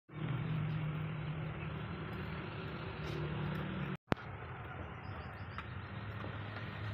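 Steady low mechanical hum with background noise, like a running engine. It breaks off in a short gap about four seconds in, with a single click as it resumes.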